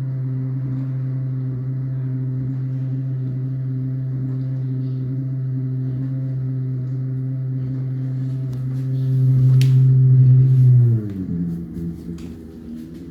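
Bosch dishwasher's pump motor running with a loud, steady hum, the strange noise the owner is filming. Near the end it swells, then winds down in pitch and stops, followed by a few faint ticks.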